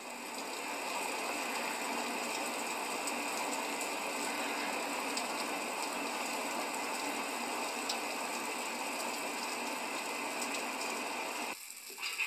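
Steady hiss of heavy rain falling, which cuts off abruptly about a second before the end.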